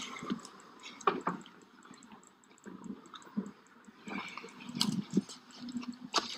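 Faint, scattered clicks and rustles of a handheld phone being moved and carried. The noise is a little busier about two-thirds of the way through.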